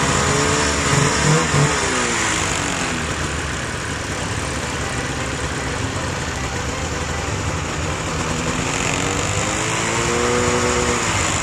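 Snowmobile engine running at low speed, its pitch dropping in the first few seconds, rising again about eight seconds in and falling off near the end.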